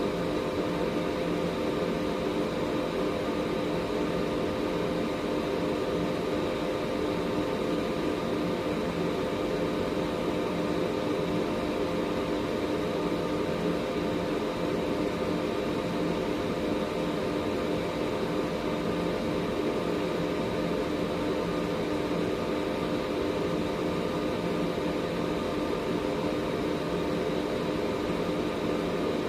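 Air purifier running steadily: an even rush of moving air with a constant motor hum.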